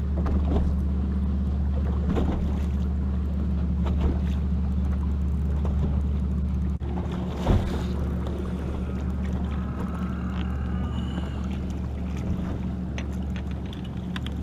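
Steady low hum of a boat motor, with scattered light clicks and a sharp knock about seven and a half seconds in.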